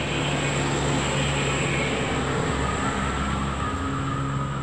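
Steady engine rumble and hum of motor vehicles, with a deeper low rumble swelling about halfway through.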